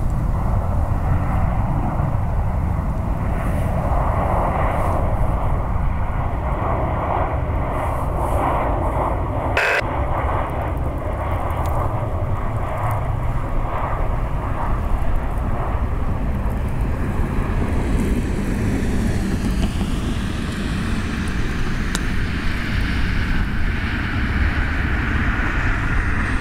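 Jet airliner engines running loud and steady, with a rumble and a rush of noise. Over the last several seconds a turbine whine slides in pitch as the aircraft moves past. A single sharp click comes about ten seconds in.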